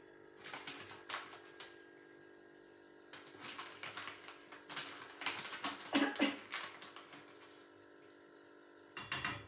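A spoon clinking and scraping in irregular bursts as cocoa powder is spooned from its container into a saucepan. Under it runs a steady low hum, with one more short clatter near the end.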